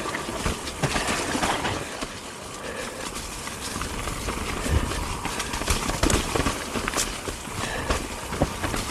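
Transition Spire alloy enduro mountain bike riding down a rough, rooty trail: a steady tyre rumble over dirt and roots, broken by frequent sharp knocks and rattles from the bike as it takes the bumps.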